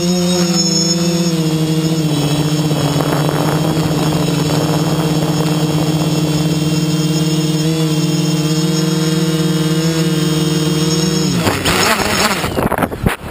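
Gaui 500X quadcopter's electric motors and propellers humming steadily in flight. About eleven and a half seconds in the hum cuts out and turns to gusting wind noise on the microphone as a propeller comes off and the craft falls.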